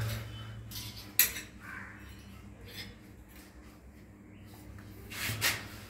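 Chrome shower arm being turned by hand into its wall fitting: a sharp metal click about a second in, faint ticks, and a louder metallic scraping rattle near the end.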